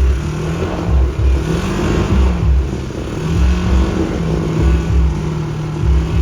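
Side-by-side UTV engine revving hard as it climbs a hill, its pitch rising and falling and then holding steady, over a regular deep thumping about twice a second.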